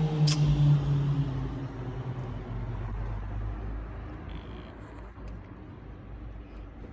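A passing motor vehicle's hum, falling slowly in pitch and fading away, with a sharp click about a third of a second in.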